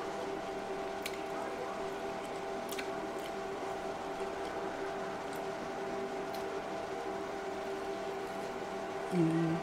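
Steady background hum of several fixed pitches, with a few faint clicks. Near the end comes a short hummed "mm" from the eater as she bites into the corn.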